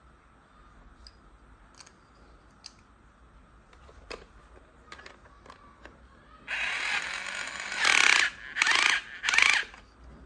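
Toy electric drill whirring, its small motor and plastic gears rattling: a few faint clicks, then one run of about a second and a half followed by three short louder bursts.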